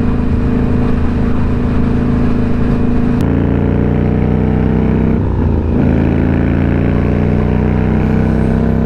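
Indian Scout Bobber V-twin engine running at cruising speed, heard from the rider's seat with wind rushing past. The engine note jumps about three seconds in and wavers briefly around the middle before settling again.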